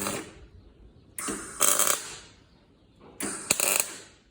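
Bursts of tool work fastening the exhaust truck stack to the ute: three rattly, clicking bursts, each under a second long, with short pauses between them.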